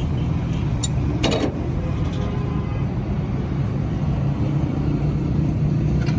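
A steady low mechanical rumble, like an engine running, with a short clink a little under a second in and a brief clatter just after.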